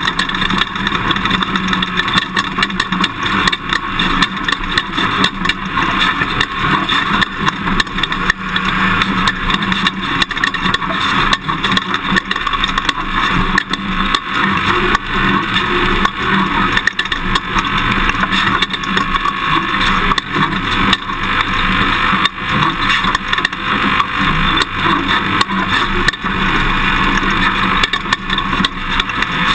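Toyota Tundra pickup driving an off-road course: steady engine and tyre noise with frequent jolts and rattles from the rough ground.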